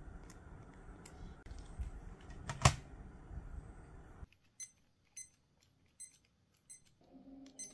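Handling of a Casio SF-6500SY organizer with a low rumble and one sharp click partway through. After a sudden drop to near silence come about four short key clicks, each with a faint high ring, spaced a little under a second apart. Faint music starts near the end.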